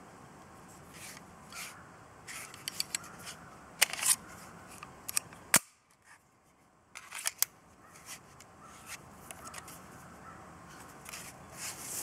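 Irregular sharp metallic clicks and clacks of a SIG Sauer P227 .45 pistol being handled while its magazine is changed, with the sharpest snap about halfway through. No shots are fired.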